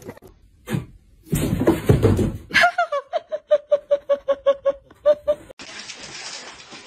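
A short rustling scuffle, then a person laughing in a quick run of short, high-pitched 'ha' pulses for about three seconds. The laughing stops abruptly and gives way to a faint steady hiss.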